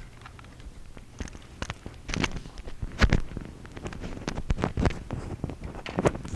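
Handling noise from a wireless microphone: irregular clicks, knocks and rubbing while its dead battery is swapped out. The sharpest knock comes about three seconds in.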